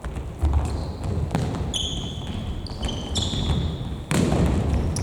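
Futsal play on a hard gym floor: indoor shoes squeaking in short high chirps and the ball thudding off feet and floor, with the loudest kick or bounce about four seconds in.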